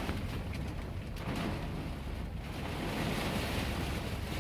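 Strong storm wind blowing against a parked semi truck, heard from inside the cab as a steady low rushing rumble.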